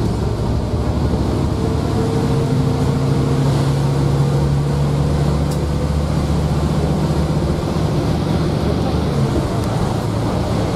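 Inside a moving bus: the diesel engine's steady low drone mixed with road noise.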